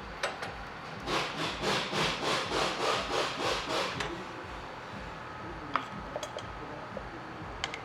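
Something rubbing or scraping back and forth in about ten even strokes, about three a second, over some three seconds, followed by a few light clicks.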